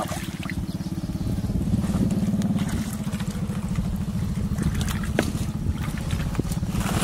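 A small engine running steadily with a fast, even pulse, with a couple of brief knocks late on.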